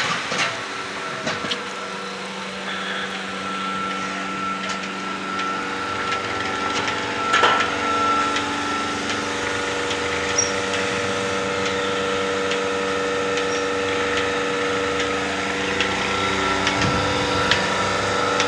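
Portable bucket milking machine's vacuum pump running steadily during milking, with light clicks through it and a brief louder knock about seven seconds in.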